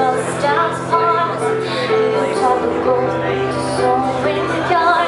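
A song performed live: a singer holding sung notes over a steady instrumental accompaniment.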